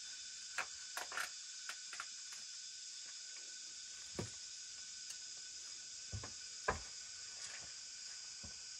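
Handling sounds, a few short knocks and rustles as tools are picked up off a plastic tarp and feet step across it, the sharpest knock near the end. Under them, a steady high hiss of forest insects.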